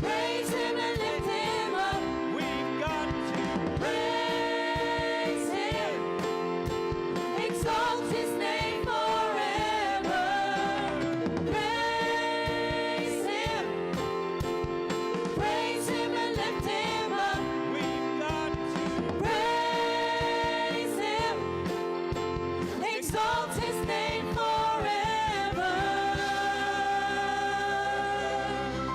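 Group singing of a gospel song with instrumental accompaniment, ending on a long held note near the end.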